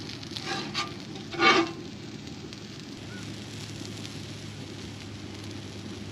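Scrambled eggs and a bagel sizzling on a Lodge cast iron griddle, a steady hiss. A few short, sharper sounds come in the first second and a half, the loudest about a second and a half in.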